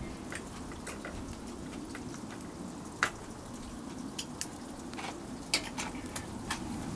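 Wood fire crackling with scattered sharp pops over a steady low sizzle, where salted mackerel is being grilled.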